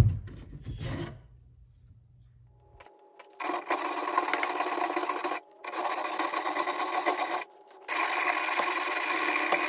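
Coarse 60-grit sandpaper rubbed back and forth by hand along a dresser's center drawer track, in three spells of quick strokes of about two seconds each. It is smoothing down a worn, raised section of the track so the drawer guide slides freely.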